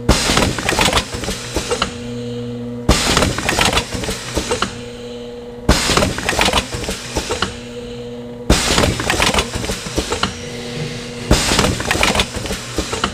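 Rotary cup-filling machine running through its cycle: about every three seconds a sudden burst of mechanical clatter as it indexes and fills a cup, with a steady machine hum in the pauses between.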